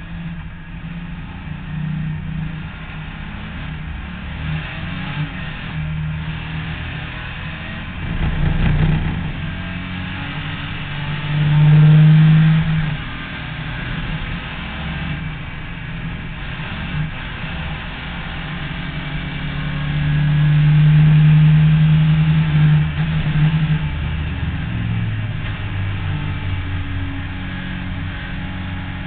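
Zilhouette race car's 2.5-litre BMW engine heard from the cockpit, pulling hard and easing off through the gears while driven fast. It is loudest about twelve seconds in and again from about twenty to twenty-three seconds in.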